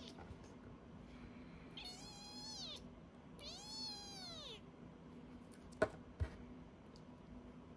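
Very young kitten giving two high-pitched meows of about a second each, rising then falling, crying in protest while held for eye drops. Two short sharp clicks follow, close together.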